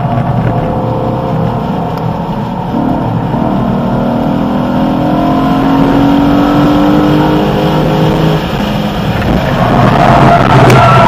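BMW E92 M3's V8 engine heard from inside the car under hard acceleration, its pitch rising steadily down the straight, then dropping suddenly about eight and a half seconds in. A rougher, noisier rumble builds near the end.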